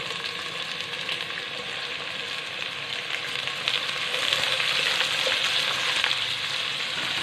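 Sliced onions sizzling as they hit hot coconut oil and ghee in a pot, stirred with a wooden spatula. The sizzle grows louder about four seconds in as they are stirred through the oil, with light taps of the spatula.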